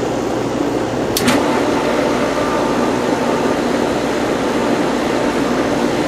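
Pool pump motor running with a steady hum just after its strainer lid is closed, working to regain prime so water circulates again. A single sharp click about a second in.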